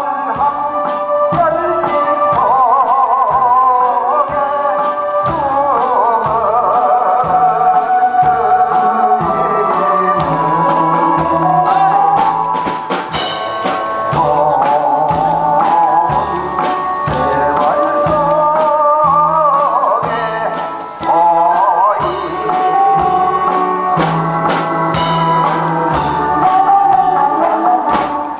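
A man singing into a microphone with a wavering vibrato, over amplified instrumental accompaniment with a steady beat and bass line.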